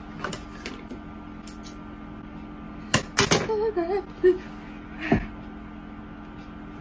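Close-up handling noises from makeup items being picked up and used: a few sharp clicks and knocks, the loudest cluster about three seconds in and a heavier thump about five seconds in, over a steady background hum.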